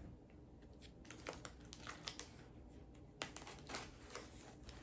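Packaging of a mailed vinyl record being worked open by hand: faint crinkling and scraping of cardboard and tape, with a few short sharp clicks.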